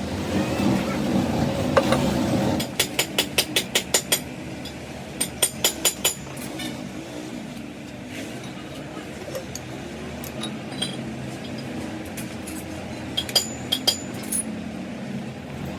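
Quick runs of sharp metallic clinks, metal striking metal, in two bursts a few seconds in and a few more near the end. A steady machine hum runs underneath at first and fades after about two and a half seconds.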